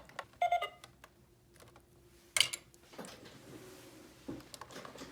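Small plastic toy parts clicking and tapping as they are handled, with a short tone about half a second in and a sharper click a little past the middle.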